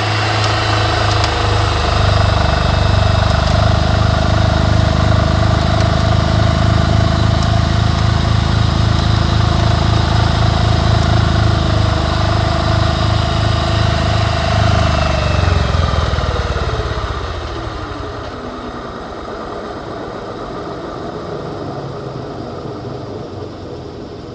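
Worn front wheel bearing on a 2007 Toyota Yaris humming loudly, a low throbbing drone like a helicopter. About two-thirds of the way in the hum falls in pitch and fades as the wheel slows. The bearing is bad: replacing it cured the noise.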